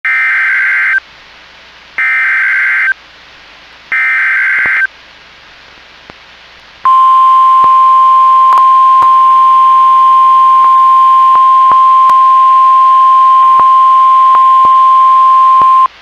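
NOAA Weather Radio emergency alert received on a scanner radio: three one-second bursts of SAME header data screech, a second apart, then the 1050 Hz warning alarm tone held steadily for about nine seconds, signalling a tornado warning. A few faint clicks of static come through during the tone.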